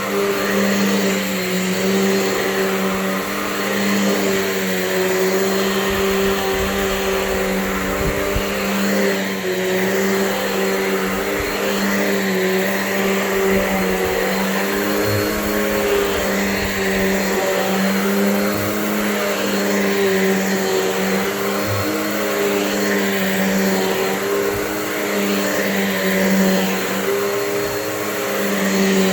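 Bissell CleanView 12-amp upright vacuum cleaner running steadily over carpet, its motor hum wavering slightly as it is pushed back and forth.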